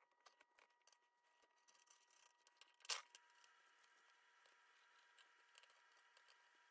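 Faint crackling and scraping of dried-out, cardboard-stiff old leather being peeled off a metal bag-frame bar, with one sharp click about three seconds in.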